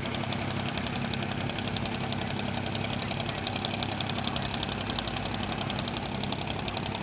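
A boat's engine running steadily nearby, a low hum with a fast, even knocking beat on top.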